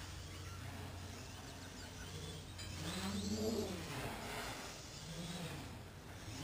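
Small quadcopter's motors whining, their pitch rising and falling as the throttle changes, loudest about three seconds in, over a steady low hum.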